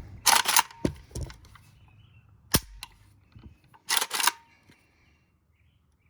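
Sharp metal clacks and snaps from an Arsenal SAM5 AK rifle being handled: a quick cluster at the start, a single clack about two and a half seconds in, and a double clack around four seconds in.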